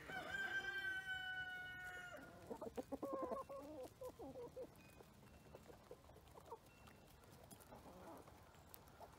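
Chickens: a rooster's crow ending in one long held note that cuts off about two seconds in, followed by a quick run of clucks and then softer, scattered clucking.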